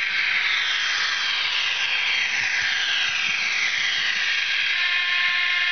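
Model BDZ class 07 diesel locomotive with an ESU sound decoder, playing its diesel engine sound through the model's small speaker as it runs. The sound is a steady, tinny engine noise with repeated falling whines, and a steady tone joins about five seconds in.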